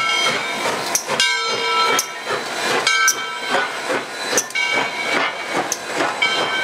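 Steam locomotive No. 630, a 1904 ALCO-built 2-8-0, passing close by with hissing steam and sharp metallic knocks. High ringing tones come and go in short spells over it.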